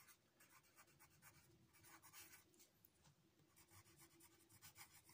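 Pencil writing on paper: faint, irregular scratching strokes of the lead as words are written out by hand.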